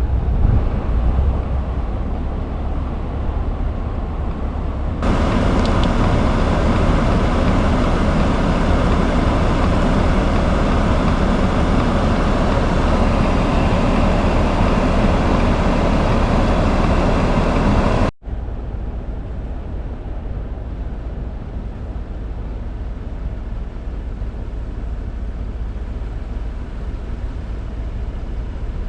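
Off-road truck and Jeep engines running in deep snow, a steady mechanical noise that jumps louder about five seconds in and drops back after a brief cutout a little past halfway.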